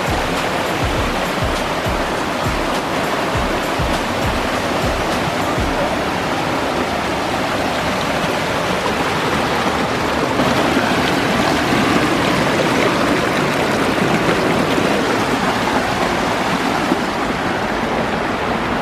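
Small waterfall: water rushing and splashing steadily down mossy rocks.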